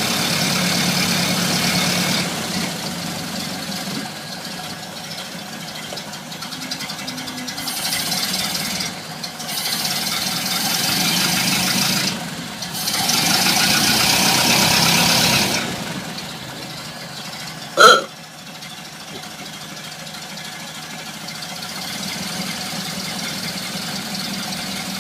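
1930 Ford Model A's four-cylinder flathead engine running, with several louder stretches between quieter idling. A single brief, loud squawk sounds about eighteen seconds in.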